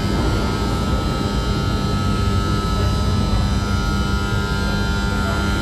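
Steady rumbling hum of an underground metro station platform, with a few steady tones on top and no rise or fall in loudness.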